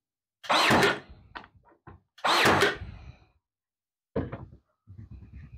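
Ryobi AirStrike cordless nailer firing twice, about a second and a half apart, driving nails through the glued wood pieces. A few lighter knocks follow near the end as the tool is put down and the wood is handled.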